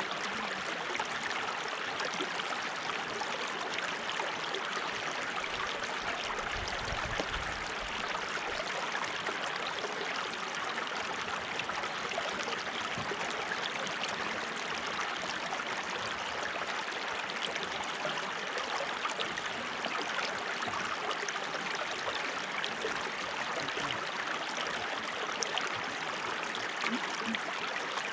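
Flowing water, a steady even rush with no let-up.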